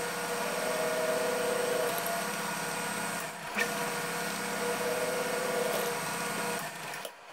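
Delta DP220 drill press running with a small twist bit drilling through a thin metal disc, a steady machine whine. The sound drops out briefly about halfway through and stops just before the end.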